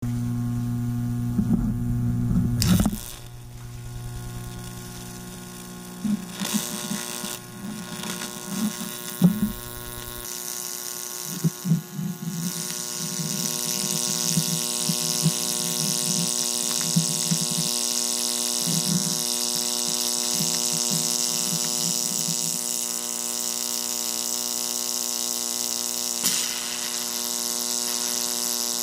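High-voltage electric arc buzzing and sizzling at the terminals of an AA battery, fed by a 12,000-volt supply, over a steady electrical hum. It crackles and sputters irregularly at first, then settles about halfway into a continuous buzzing hiss as the arcs burn at both ends.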